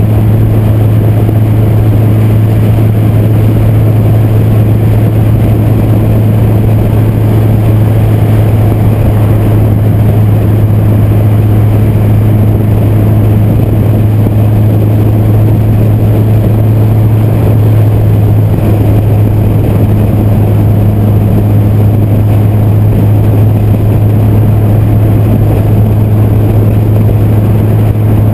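Honda Fit with a swapped-in naturally aspirated K24 2.4-litre four-cylinder at steady highway cruise: a loud, even engine drone that holds one pitch, mixed with road and wind noise picked up by a camera on the outside of the car.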